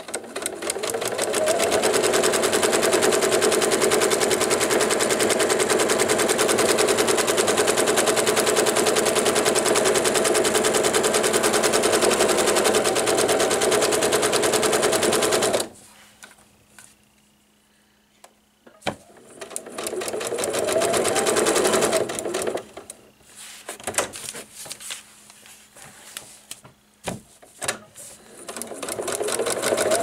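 Electric sewing machine stitching through fabric and foundation paper at a fast, even pace, set to a short stitch length. It stops abruptly about halfway through. After a pause it runs in a short burst, then in several brief stop-start stitches with clicks, and it runs steadily again near the end.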